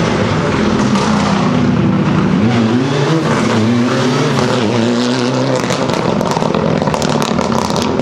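Mitsubishi Lancer Evolution rally car's turbocharged four-cylinder engine driven hard past at stage speed, the revs rising and dropping through gear changes. A rapid run of sharp cracks comes in the second half.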